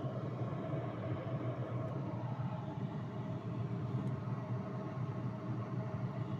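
Refrigerator freezer making a steady low hum while the door switch is held pressed, a noise from a fridge that otherwise stays silent and that the owner says has burned out.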